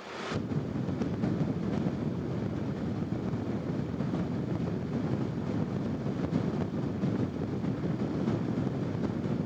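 Wind noise from a floor fan on high blowing onto a bare Rode NTG-3 shotgun microphone with no windscreen, a steady low rushing rumble, heard after editing to reduce it.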